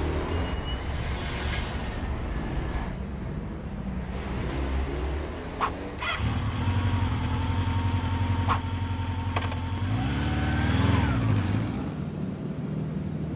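Vehicle engine sound effects: a car engine running steadily, then from about six seconds in a motor scooter's engine running and revving up near the end, followed by a steady engine hum again.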